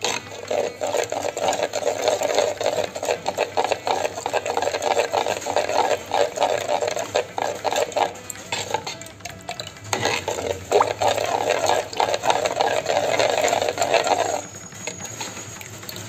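Steel spoon stirring a thick curd batter in a bowl, quick scraping strokes going round and round. There is a short lull about nine seconds in, and the stirring stops a second or two before the end.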